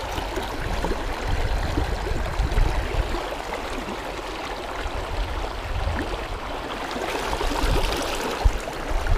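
Steady rush and burble of a fast, shallow river running over rocks close to the microphone, with a low rumble on the microphone underneath. A short knock sounds near the end.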